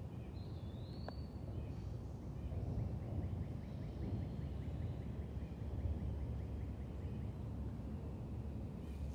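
Outdoor ambience: a steady low rumble with faint bird calls over it, a short rising whistle about half a second in, then a fast run of chirps from about two and a half to six seconds.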